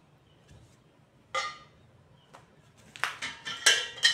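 Metal frame pieces of a flat-pack shoe bench clanking together as they are handled: one sharp clank about a second in, then a quick run of ringing clanks near the end.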